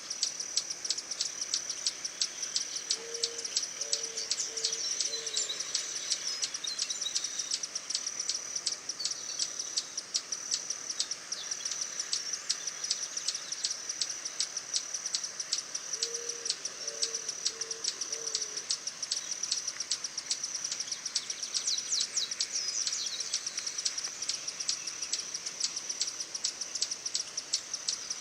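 Outdoor chorus of high-pitched bird chirps over a steady high insect-like buzz. Twice, a low call of four or five short, evenly spaced notes sounds beneath it.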